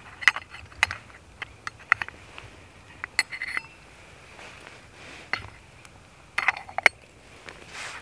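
Lid of a Trangia aluminium kettle clinking as it is lifted off and set back on: a scattered series of sharp metallic clinks with a short ring, bunched near the start, around two and three seconds in, and again between six and seven seconds.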